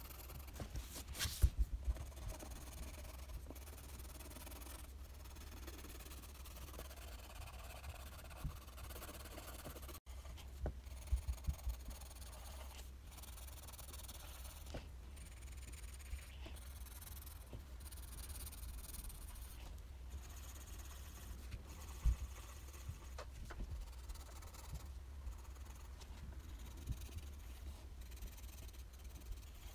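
Pencil drawing on paper held on a clipboard: soft scratching and rubbing strokes over a low steady hum. Short clusters of light knocks and taps come near the start, again about a third of the way through, and once more past the middle.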